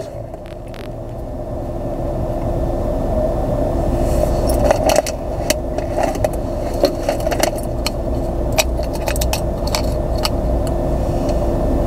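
Small loose items clicking and rattling as someone rummages through a car's center console, over a steady cabin hum that grows slowly louder in the first few seconds.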